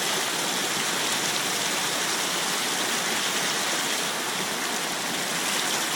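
Floodwater of the overflowing creek rushing in a steady, even roar-free rush of water.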